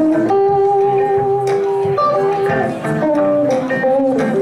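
Three electric guitars played together live, one carrying a melody of long held notes that steps down in pitch in the second half, over the others' chords.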